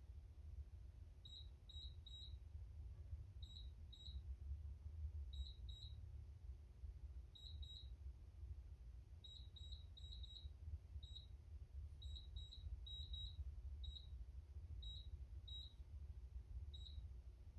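Short, high electronic beeps at one pitch, about two dozen, mostly in quick pairs and triples, from the Trans-Lux Fair-Play PS-6000 LED scoreboard's controller as its keys are pressed, over a low steady hum.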